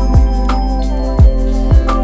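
Background music: an electronic beat with deep kick-drum hits that drop in pitch, a steady ticking hi-hat and held melodic notes.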